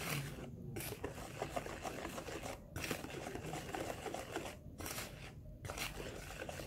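Wire whisk beating cake batter of flour and oil in a plastic basin: a rapid, scratchy swishing, with brief pauses now and then.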